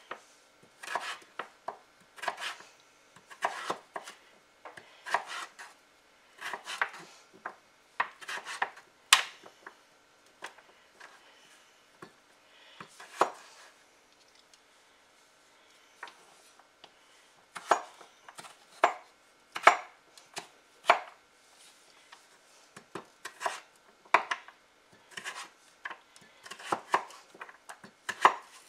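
Chef's knife chopping raw butternut squash into strips and cubes on a wooden cutting board. The blade knocks on the board in irregular clusters of strokes, with a lull about halfway through.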